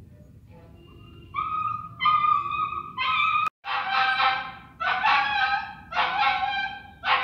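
A frightened dog whining: a few short high-pitched cries, then three longer wavering cries from about halfway through.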